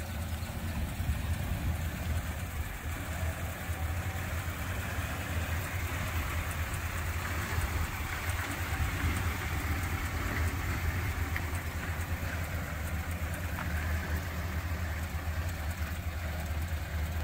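1963 Chrysler Crown Imperial's 413 V8 engine idling steadily, a low even drone.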